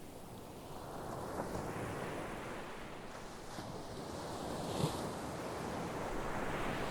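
Sea waves breaking as surf: a rushing wash that swells about a second in, eases off, then builds again near the end as the next wave comes in.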